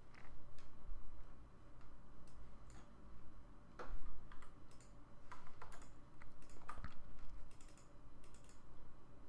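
Scattered, irregular clicks of a computer mouse and keyboard, over a low steady hum.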